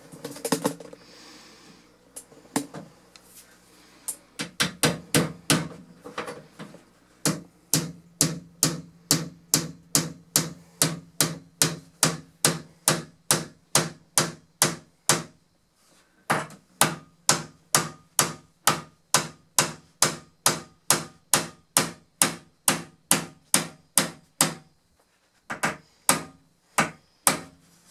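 Hand hammer nailing wooden trim in place: two long runs of steady, evenly spaced blows, about two or three a second, with a short pause between them.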